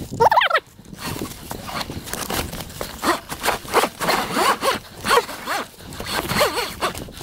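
An electric dirt bike's tyre scrabbling and scraping on loose stones on a steep climb, with short rising-and-falling whines from its motor under the grinding.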